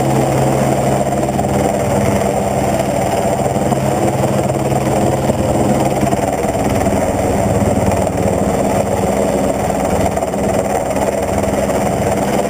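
Helicopter running steadily: a loud, even mechanical drone of engine and rotor, with a low hum in it that fades out about halfway through.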